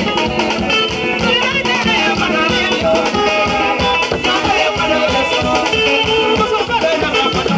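West African dance music played live: djembe hand drums beaten in a fast, dense rhythm, with singing over them.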